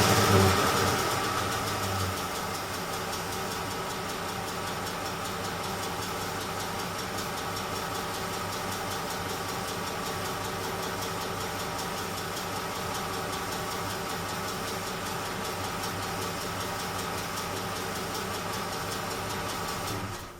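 Ford F-150's 5.4L 3V Triton V8 dropping back from a rev over the first couple of seconds, then idling steadily with a fast, even ticking over the engine note. The tick was later cured by new coil packs and spark plugs. The sound cuts off suddenly at the end.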